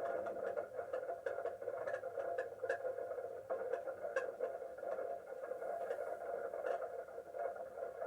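Outdoor tornado warning siren sounding a steady, unbroken tone whose loudness wavers, with scattered faint clicks over it.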